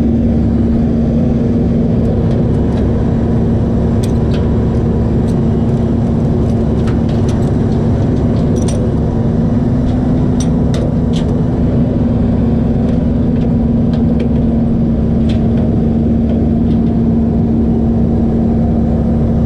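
Tow truck's engine running steadily, a constant drone over a low rumble, with a few light clicks and ticks scattered through the middle.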